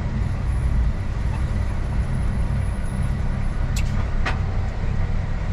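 Kenworth truck's diesel engine running steadily, heard from inside the cab as the truck rolls slowly in stop-start traffic. A little under four seconds in come two brief sharp sounds about half a second apart.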